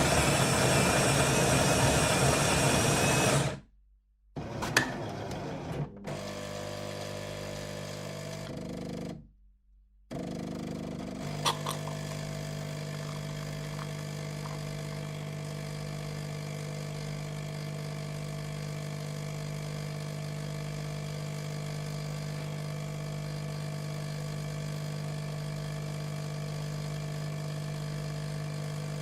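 Electric coffee machine: its grinder runs loudly on coffee beans for about three and a half seconds, then stops abruptly. After a short pause come a few clicks and a steady motor hum, which stops briefly and then restarts, humming evenly with a couple of clicks.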